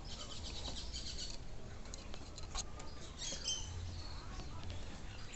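A few light clicks and taps from handling the metal parts of a car seat, with birds chirping in the background, most clearly a little past the middle.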